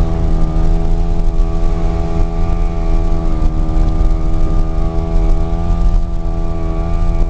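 A steady engine drone held at near-constant revs, its pitch wavering slightly up and down, over a continuous low rumble of road and wind noise.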